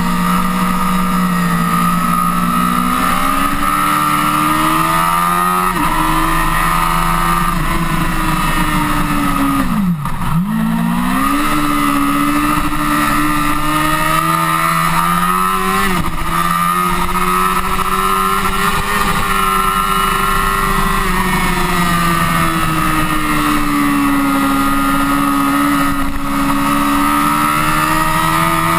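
Honda CBR1000RR's inline-four engine running hard at track speed, its pitch rising and falling through the gears. About ten seconds in it drops sharply and briefly, then climbs again.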